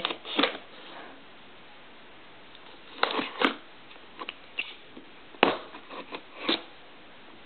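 A knife cutting the packing tape on a cardboard box, heard as short scratchy scraping strokes in a few separate groups with pauses between them.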